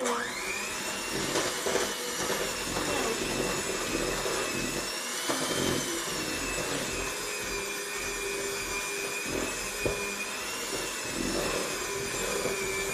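Electric hand mixer running steadily as it beats a baking mixture, with a whine that wavers slightly in pitch. It switches on abruptly, and there are a few short knocks along the way.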